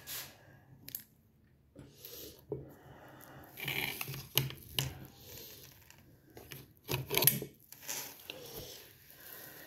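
Things being handled on a kitchen counter: irregular clicks, knocks and rubbing, with the loudest knocks about seven seconds in.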